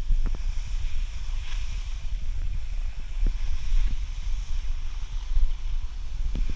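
Wind buffeting the camera microphone while skiing downhill, a steady low rumble over the hiss of skis sliding on snow, with a few short clicks.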